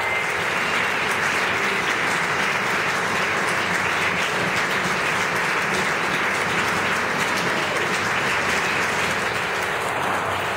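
Audience applauding, a dense, steady clapping that holds at one level throughout.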